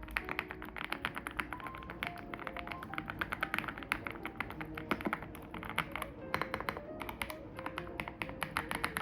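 Background music with rapid, irregular clicking of mechanical keyboard keys being pressed on a YUNZII C98 keyboard.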